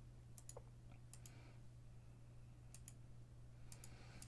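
Near silence: a low steady hum with faint, sharp clicks that come mostly in quick pairs, about five times.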